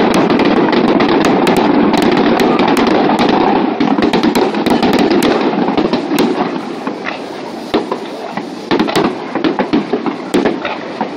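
Aerial fireworks display: a dense, continuous din of overlapping bursts for the first four seconds or so, then thinning into rapid sharp crackles and pops, with a cluster of louder pops about nine seconds in.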